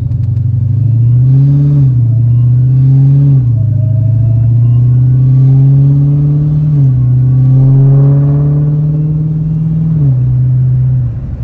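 Dodge Challenger Hellcat's supercharged 6.2-litre Hemi V8 accelerating, heard from inside the cabin. Its pitch climbs and drops back at each upshift, four times, and the sound eases off near the end. The exhaust has its mufflers deleted and resonators kept, and the engine is still on its stock air intake.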